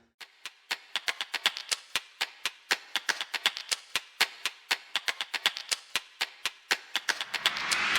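Rapid, uneven sharp clicks or taps, several a second, with music coming in near the end.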